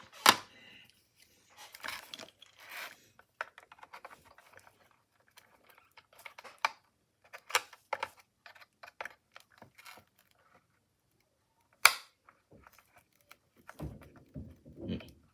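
Screwdrivers prying and scraping at a brittle plastic radio case, with scattered clicks, taps and scrapes and a few sharp snaps, one about twelve seconds in.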